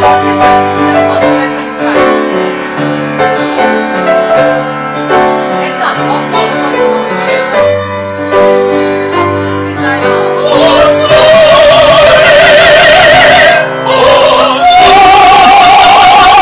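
Upright piano playing a solo introduction; about ten seconds in, singers come in loudly with strong vibrato, pause briefly for breath a few seconds later, then carry on.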